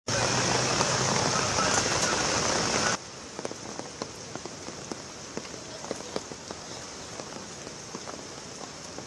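Heavy rain: a loud, steady hiss that cuts off about three seconds in. It gives way to quieter rain with many scattered drops tapping.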